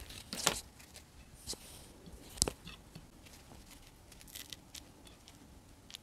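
Crusty bread torn apart by hand close to a clip-on microphone, the crust crackling in a few sharp snaps, the loudest about half a second and two and a half seconds in. Near the end, softer crackles as a torn piece is dabbed into bean and tomato stew.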